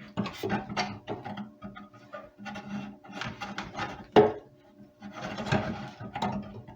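Clicks, taps and rattles of a coping saw being handled as its pinned blade is turned round in the frame. The sharpest knock comes about four seconds in.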